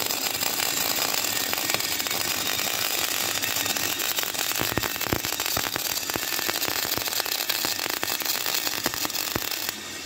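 Electric arc welding: a dense, steady crackling and sizzling of the welding arc, which cuts off just before the end.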